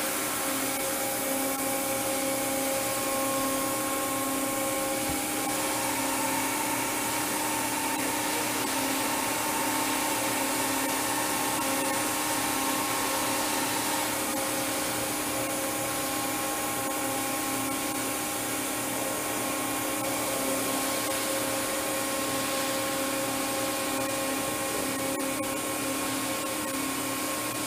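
Large gantry five-axis machining centre running through an automatic spindle-head change: a steady whir and hiss of motors and fans over several constant hum tones. A further tone comes in about five seconds in and drops out around fourteen seconds, as an axis moves.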